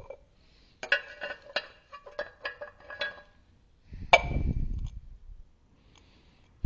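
Small metal tools clinking and rattling together in a quick run of ringing clicks, then one louder metallic knock with a dull thud about four seconds in.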